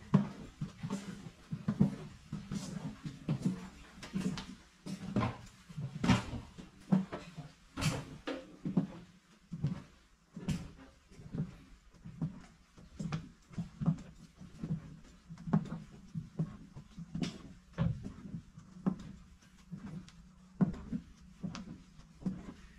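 Footsteps walking along a train carriage's floor at an even pace, a little more than one step a second, over a steady low hum.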